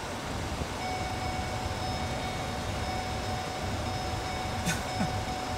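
Idling vehicle heard from inside its cabin in stop-and-go traffic: a steady low rumble, with a faint steady whine that comes in about a second in and a brief click near the end.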